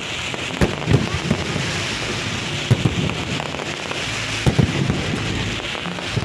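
Fireworks going off: a steady hiss of spark fountains, cut by several sharp bangs from aerial shells.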